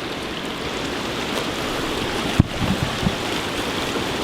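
Steady rush of moving water, with a sharp click about two and a half seconds in and a few soft knocks after it.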